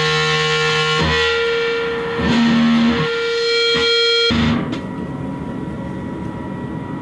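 Electric guitar through fuzz distortion playing a few long held notes, each changing about a second apart. The notes cut off suddenly about four seconds in, leaving a quieter steady amp tone and hum.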